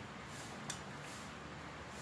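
Faint handling of wires and plastic parts by hand, with one short sharp click about two-thirds of a second in.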